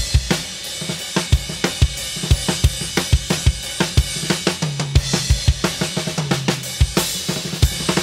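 Drum kit played in a steady beat: bass drum, snare and cymbals with hi-hat, hit after hit without a break.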